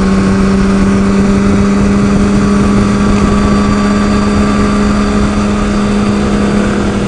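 2007 Honda CBR600RR inline-four engine holding a steady note at constant cruising revs, heard from the rider's helmet over a rush of wind and road noise.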